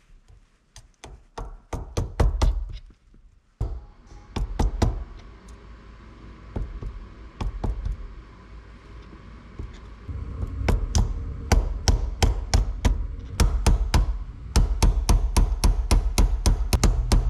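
Small hammer tapping the reverse lockout pin into the shift cable of a Subaru STI shifter linkage: a long run of sharp metal taps. The taps are scattered and irregular at first, then from about halfway come steadily at roughly three a second.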